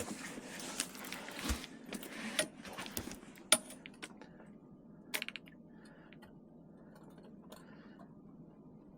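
Scattered clicks, light knocks and a short rattle of fishing tackle being handled in a boat while a fish is brought in on a planer-board line, with a sharp click about three and a half seconds in and a brief clatter a little later, then quieter.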